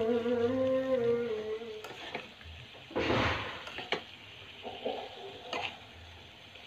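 A metal spoon stirs and scrapes sliced vegetables in spice paste around a nonstick frying pan, with a light sizzle, a short scraping rush about three seconds in, and a few clinks against the pan. Background music ends about two seconds in.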